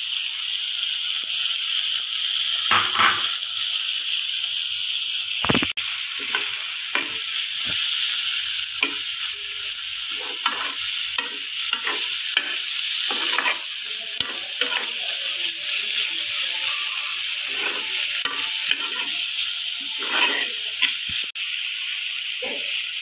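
Diced vegetables sizzling in a hot frying pan while a metal spoon stirs them, with frequent short scrapes and taps of the spoon against the pan over a steady high sizzle.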